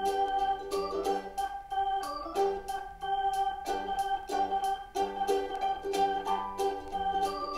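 Background music: a light melody of held, changing notes over a steady beat of about four ticks a second.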